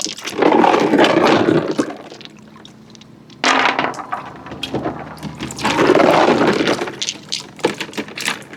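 Marbles rolling along a wooden track, a rushing rumble in surges scattered with small clicks and knocks. A louder surge starts suddenly about three and a half seconds in, and another comes a couple of seconds later.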